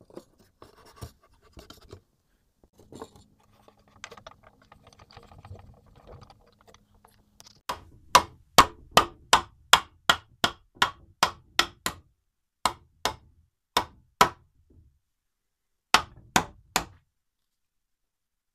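Mallet knocking a wooden rail down onto a post to seat a mortise-and-tenon joint: a run of about a dozen sharp knocks, about three a second, then four more and a final three. Before the knocks, quieter scraping and handling of the wood.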